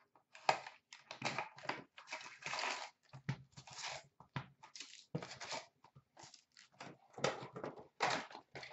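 Cardboard hobby box of trading cards being opened: the lid and inner flaps scraping and tapping, and the wrapped card packs rustling and knocking as they are lifted out and stacked, in a string of irregular short rustles.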